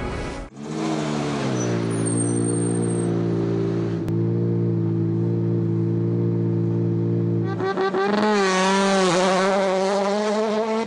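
Peugeot 208 T16 R5 rally car's turbocharged four-cylinder engine held at steady revs on the start line, then revving up and down as the car pulls away, from about seven and a half seconds in.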